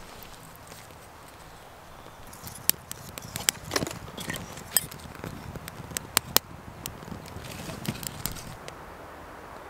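Freshly lit kindling fire of split wood and feather-stick shavings crackling in a Dakota fire pit. Sharp, irregular pops and snaps come thickly from about two and a half seconds in and thin out near the end.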